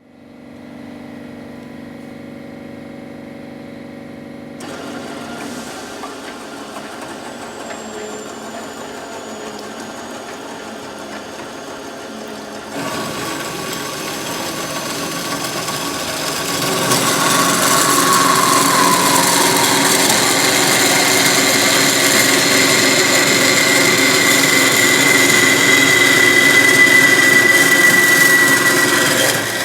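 Forte 250 horizontal band saw starting up and running with a steady motor hum, then growing louder in steps about a sixth, just under half, and just over half of the way through, with a steady high whine over a dense mechanical noise in the later part.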